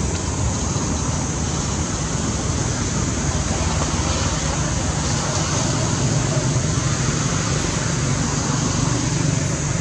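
Steady outdoor background noise: an even, continuous rushing hiss over a low rumble, with no distinct events.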